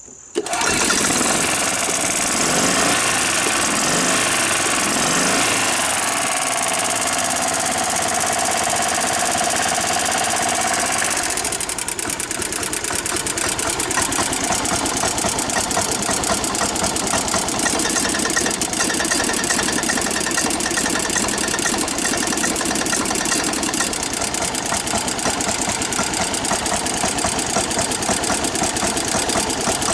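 Golf cart's gasoline engine being started just after its clogged carburetor jet was cleaned. For about the first eleven seconds it cranks and fires unevenly, then it settles into a steady fast running beat.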